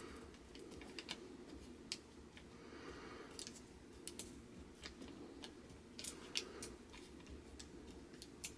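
Faint handling sounds from hands working tape and paper against a rubber washing machine door seal: scattered light clicks and a brief soft rustle about three seconds in.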